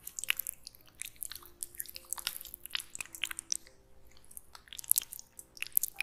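Oil-slicked hands rubbing and pressing together, giving a quick, irregular run of wet, sticky clicks and smacks.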